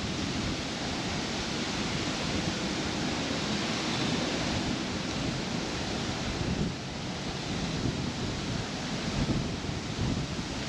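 Steady rushing noise of wind buffeting the microphone, with a gusty low rumble.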